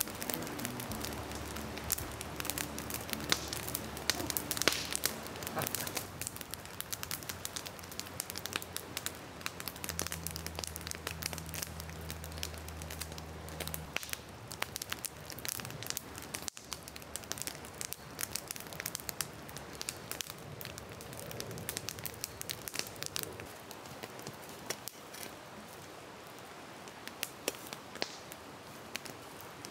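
Campfire wood burning with irregular crackles and pops over a steady hiss, as the fire burns down toward coals. A low hum comes and goes twice in the background.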